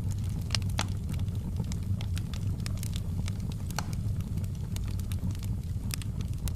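Wood campfire burning, with irregular sharp pops and crackles over a steady low rumble.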